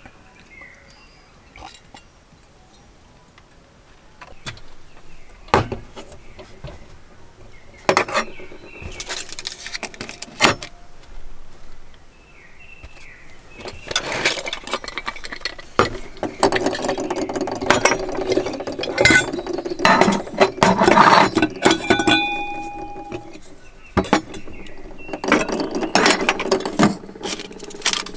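Stainless steel camping cook-set pieces clinking and scraping as a nested kit is unscrewed and taken apart. This is busiest in the second half; before that there are only a few separate clicks and knocks.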